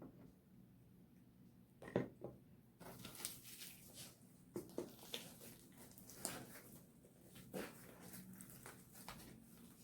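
Faint sticky clicks and squelches of homemade slime being worked and mixed by hand, starting with one sharper click about two seconds in and then running as many small irregular crackles.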